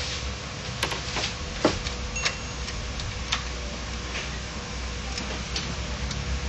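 Irregular small clicks and taps of a screwdriver working the screws of an HP LaserJet 1010 laser printer's plastic rear cover, over a steady low hum.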